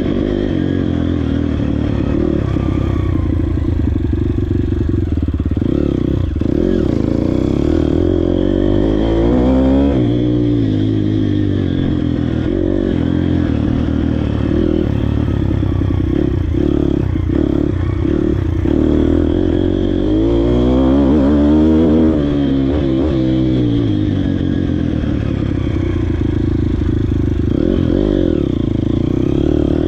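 YCF Bigy 150 MX dirt bike's single-cylinder four-stroke engine being ridden slowly through tight figure-eight turns, the revs rising and falling again and again as the throttle is opened and closed. It revs highest about ten seconds in, just after twenty seconds and near the end.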